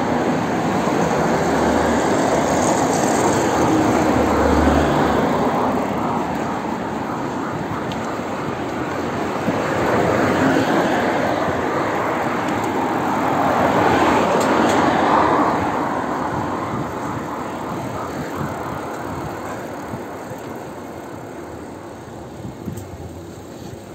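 Road traffic: a steady noise of passing vehicles, swelling as one goes by about two-thirds of the way through, then slowly dying down.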